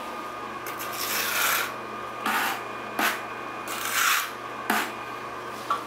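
Half-inch notched steel trowel scraping and combing modified thinset mortar across the floor in a run of about six short strokes. The longest stroke comes about a second in and the loudest about four seconds in.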